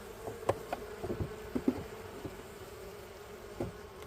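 Honeybee colony buzzing steadily in an opened hive, the bees stirred up and getting louder after being disturbed. A few short sharp clicks sound over the hum in the first two seconds and once more near the end.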